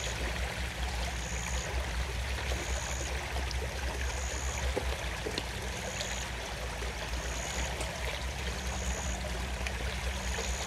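River water flowing steadily, with a high short chirp repeating about once a second over it.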